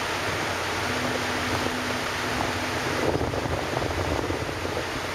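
Steady drone of a car ferry's engines and machinery with a low hum, heard from the deck as the ferry comes in to its berth. About three seconds in, wind buffets the microphone in a rougher rush for a second or so.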